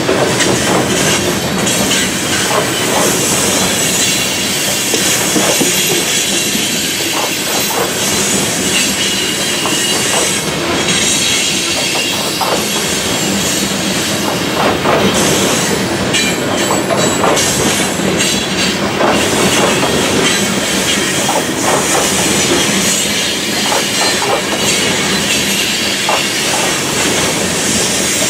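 Train cars rolling past on steel rails: a loud, steady clatter of wheels over the track with many short clicks, and wheel squeal above it.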